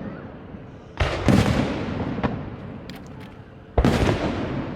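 Aerial firework shells bursting overhead: a loud boom about a second in, quickly followed by a second, another near the end, each fading in a long rolling echo, with a few faint crackles in between.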